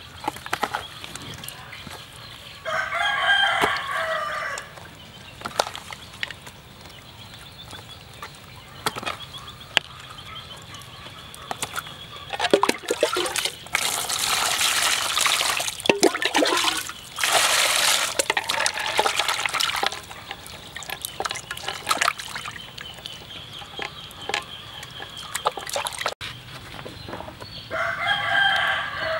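A rooster crows twice, about three seconds in and again near the end, each crow about two seconds long. In between, water poured from a scoop splashes over eels in a plastic basin in two long pours, with small wet handling clicks around them.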